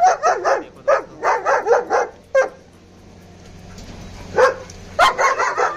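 German Shepherd dogs barking in fast runs of several sharp barks, with single barks in between.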